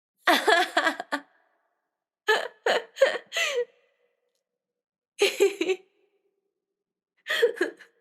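A woman laughing in four short, separate bursts, each a quick run of breathy pulses, with silence between them.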